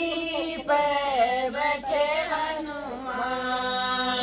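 Women singing a Hindi devotional bhajan together, with long held notes in the second half.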